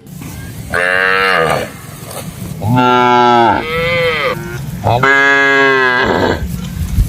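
A cow mooing three times, each moo a drawn-out call that drops in pitch at its end.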